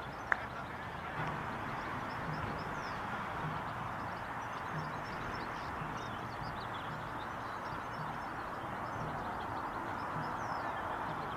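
Steady outdoor background noise with faint, high, short bird chirps scattered through it, and a single sharp click about a third of a second in.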